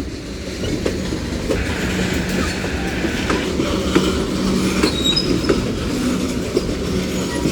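Freight train cars rolling past: a steady rumble of steel wheels on rail, with scattered clicks from the wheels crossing rail joints and a few faint, brief wheel squeals.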